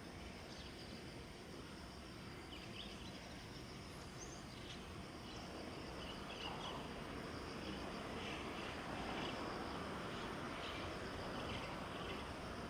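Insects chirring steadily, with a few short chirps over the top. A faint low rumble swells gently from about five seconds in.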